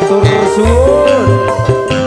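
Live dangdut band music: a lead melody sliding up and down in pitch over steady drum beats.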